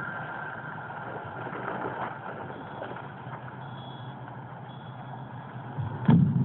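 Music has stopped, leaving a steady low hum of outdoor background. About six seconds in, a sudden loud thump and rumbling as the camera on the ground is approached and handled.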